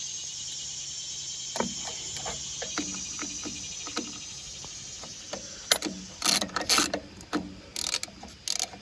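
Hand ratchet wrench clicking in short bursts as a bolt is run down and tightened. The clicks are sparse at first and come in quick clusters near the end.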